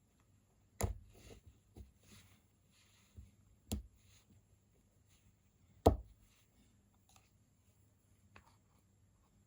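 Three sharp knocks of small tools or knife parts on a hard work surface, the third the loudest, with faint handling clicks and rustles between.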